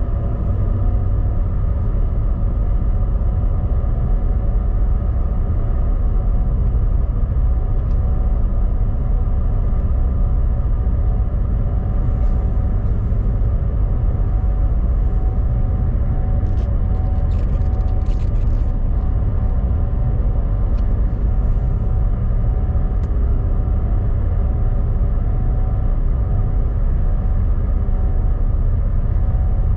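An engine running at a constant speed: a loud, deep, unchanging rumble with a steady hum over it, and a few faint light ticks in the middle.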